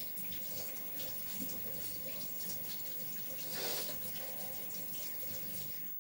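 Kitchen tap running as hands are washed under it, with a louder splash a little past halfway; the water shuts off near the end.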